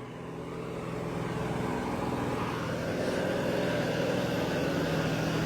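A heavy vehicle's diesel engine running steadily, growing gradually louder as it comes closer or works harder.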